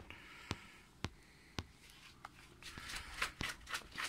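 Hands handling and turning a Baader Hyperion eyepiece: light rustling and rubbing, busiest and loudest in the last second or so. Faint sharp clicks come evenly about twice a second throughout.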